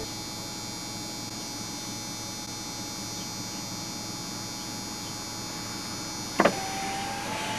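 Steady hum and drone inside a moving car's cabin, with a faint high whine over it and a single knock near the end.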